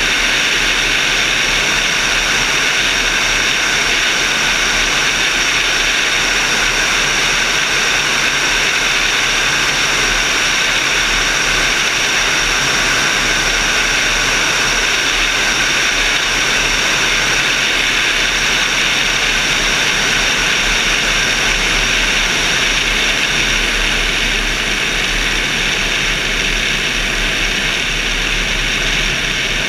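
Steady rush of airflow past a camera mounted on a glider's wing in flight: a loud, even hiss, strongest in the upper range, easing slightly near the end.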